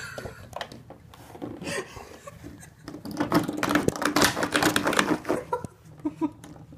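A spring door stopper being flicked and twanging, with scattered clicks and then, about halfway through, a rapid rattling buzz over a steady low twang that dies away after about two seconds.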